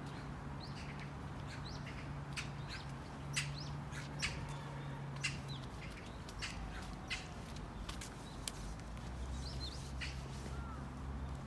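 Small birds chirping: short, sharp calls and a few quick whistled glides, scattered irregularly, over a low steady hum.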